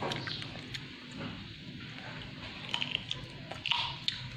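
Quiet squishing and small clicks of a baby monkey mouthing and handling a rubber duck toy, with a brief louder rustle about three and a half seconds in.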